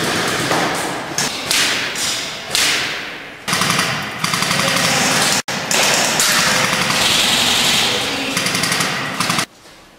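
Airsoft guns firing rapid bursts of clicks and thuds, repeatedly starting and stopping. The sound breaks off abruptly once in the middle and again near the end.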